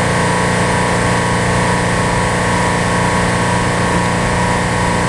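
Running chiller, a pretty loud machine, giving a steady drone made up of many steady hum tones that does not change.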